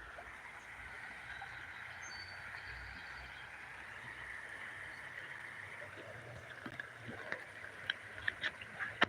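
Faint, steady outdoor background noise with a band of hiss throughout, joined in the last few seconds by a scatter of small clicks and taps.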